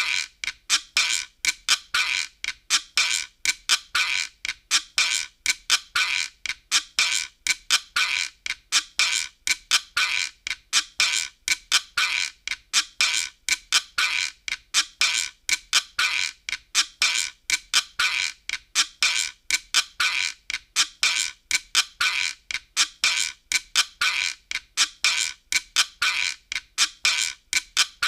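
Optigan sound effect: short, squeaky, clicking strokes repeating at an even rhythm of about two to three a second, without a change in pace or pitch.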